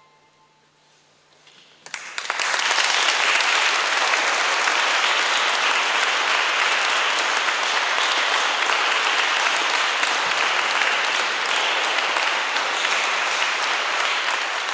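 Brief near silence as the last string notes die away, then audience applause breaks out about two seconds in and continues steadily at the end of the piece.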